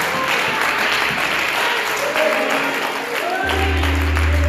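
A church congregation clapping hands in applause. About three and a half seconds in, a keyboard comes in with a deep, sustained bass chord under the clapping.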